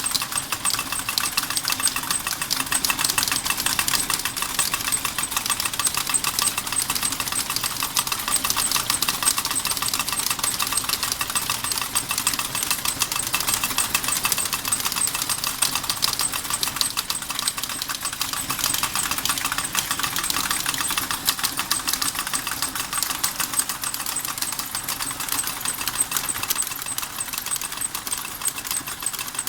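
Model steam engine running steadily, with a fast, unbroken clatter of small rapid knocks and rattles from its moving parts and the models it drives.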